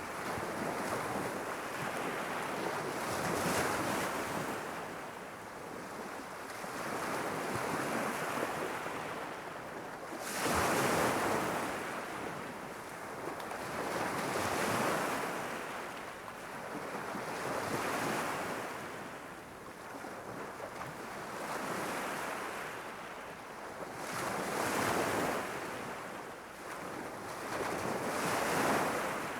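Gentle sea waves lapping and breaking against a rocky shore, swelling and fading every three to four seconds, with one stronger break about ten seconds in.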